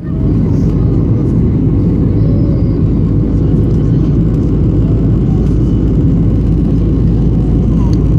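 Airliner's steady low rumble during landing, loud and unchanging.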